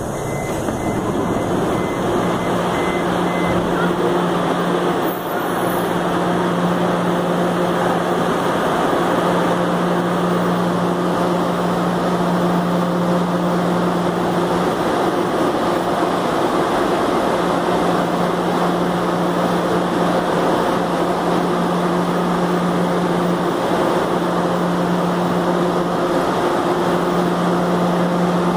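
Steady hum and rush of a metro train standing at the platform, its onboard equipment running with a constant low hum that does not rise or fall.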